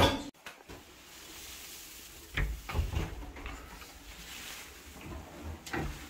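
Cupboard doors and fittings being handled: a sharp click at the start, then a few separate knocks and thumps about two to three seconds in and again near the end.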